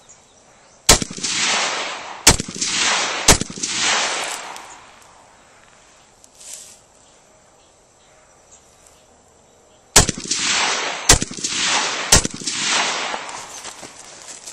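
Rock River Arms AR-15 rifle firing two strings of three shots, the shots about a second apart. Each shot is followed by about a second of echo, and several quiet seconds separate the two strings.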